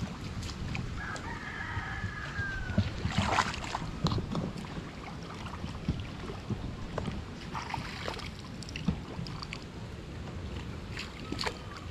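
Water sloshing and splashing as people wade thigh-deep through a river hauling a net. A rooster crows once about a second in.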